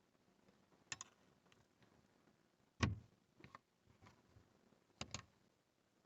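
Small plastic clicks and taps from handling a car's overhead map light cover and bulb: a pair of clicks, a heavier knock with a dull thud about three seconds in, a few lighter ticks, then another pair of clicks near the end.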